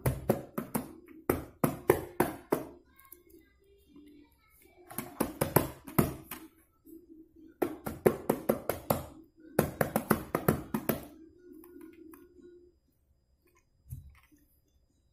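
A small child's toy drum slapped rapidly by hand in four quick runs of sharp strikes, about five or six a second, with a low steady hum underneath in the middle part. One soft knock near the end.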